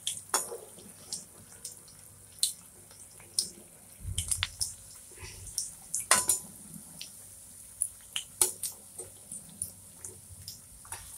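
Bread slices frying in hot oil, with irregular crackles and pops of spattering oil, and the clink of a steel slotted skimmer against the pan.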